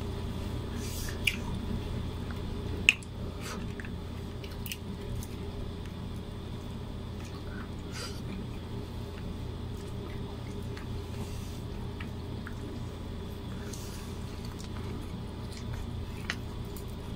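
Hands peeling boiled shrimp and prising apart mussel shells: wet squishing with scattered small clicks and cracks of shell, two sharper snaps in the first few seconds. A steady low hum runs underneath.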